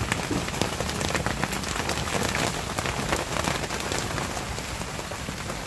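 Heavy rain pelting a sailboat's deck and the clear window right in front of the microphone: a dense, steady hiss made of countless individual drop hits.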